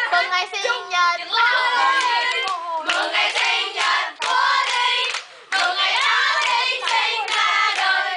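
A group of young people singing a birthday song together while clapping along, with a short break about five seconds in.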